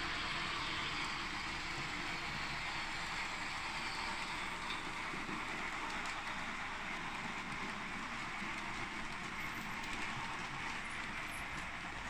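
Märklin model trains running around a layout: a steady whirr and rattle of small motors and metal wheels rolling on the track.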